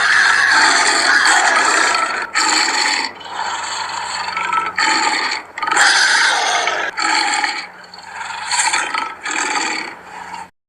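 Big cat making a series of rough, rasping growls and snarls in bursts with short breaks, cutting off near the end.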